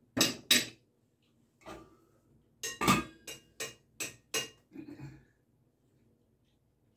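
Metal kitchenware clinking against a stainless steel soup pot: two sharp knocks right at the start, then a quick run of about six clinks and clatters around the middle.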